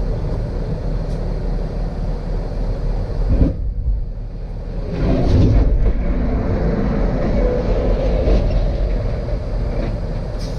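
Steady low drone of a truck moving at highway speed, heard from inside the cab: engine and road noise, louder for a moment about five seconds in.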